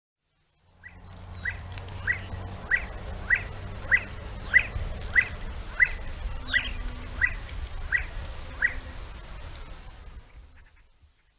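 A game bird of the partridge or grouse kind calling in a steady series of about a dozen short notes, each dropping in pitch, roughly one every 0.6 seconds, over a low steady rumble; the recording fades in and out.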